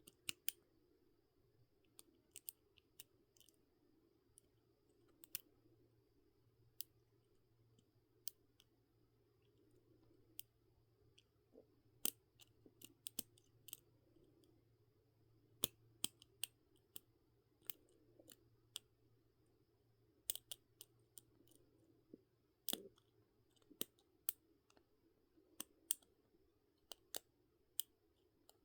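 Faint, irregular metal clicks of a lock pick and tension wrench working the pins of a lock, sometimes singly and sometimes a few in quick succession, over a faint steady low hum.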